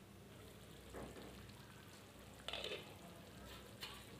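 Faint simmering and sizzling of chicken cooking in masala gravy in an aluminium kadai as the lid comes off. A few short soft noises break in, the loudest about two and a half seconds in.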